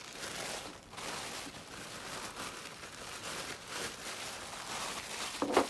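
Tissue paper rustling and crinkling as sheets are handled and moved about on a table, with a brief louder sound near the end.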